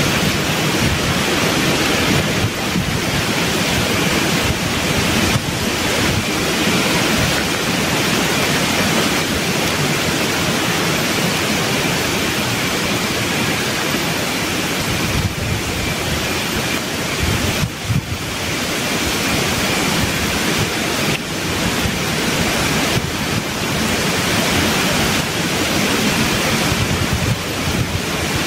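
Wind rushing through tropical forest canopy: a steady roar of stirring leaves and branches that swells and eases a little.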